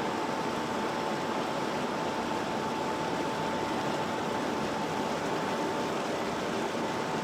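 Road construction machinery running steadily: an even mechanical noise with a constant high whine through it.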